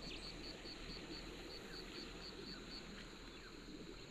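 Quiet outdoor ambience: a faint steady low rumble, with a short high chirp repeated about four times a second that stops about three seconds in.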